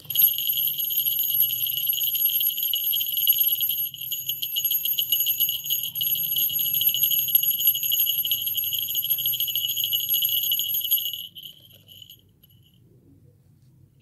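Small hand-made falconry bell shaken rapidly by its string, giving a continuous bright, high jingling ring. The ring breaks off briefly about four seconds in and stops about eleven seconds in.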